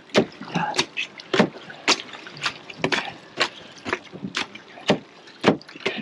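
A metal bait masher pounding chopped fish ground bait mixed with oil in a tray: sharp knocks about two a second with wet squishing between, smashing the fish up to release the guts for rubby dubby.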